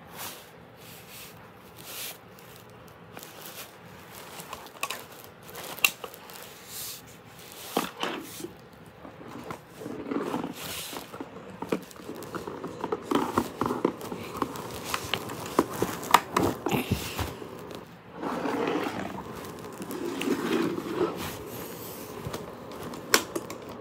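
Plastic toy dart blaster being handled close to the microphone: irregular clicks and knocks of plastic parts, with fingers rubbing and shuffling against the toy.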